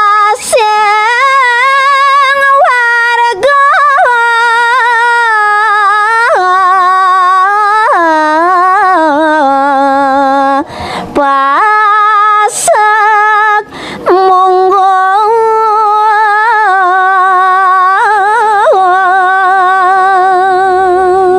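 A woman singing a Balinese pupuh Sinom verse solo and unaccompanied, holding long notes with wavering ornaments and taking a few brief breaths between phrases.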